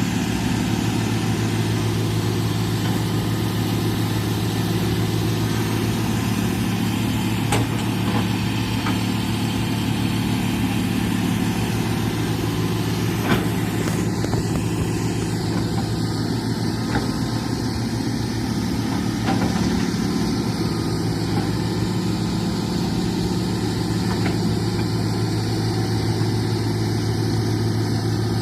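Excavator's diesel engine running steadily at a constant speed, with a few sharp knocks from the machine at work.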